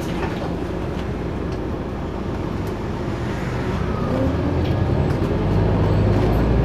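Scania OmniCity single-deck bus heard from inside the saloon while under way: steady diesel engine drone and road noise. The engine grows louder in the last couple of seconds.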